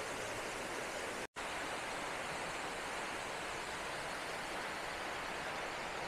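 Steady rushing of a waterfall pouring into a pool, with a split-second break in the sound about a second in.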